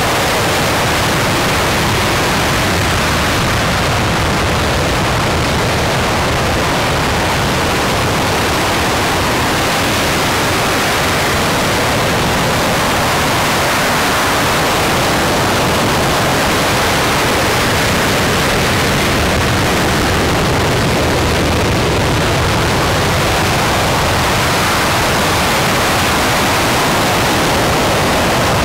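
RS-25 liquid-hydrogen and liquid-oxygen rocket engine firing on a test stand: a loud, steady roar that holds without a break.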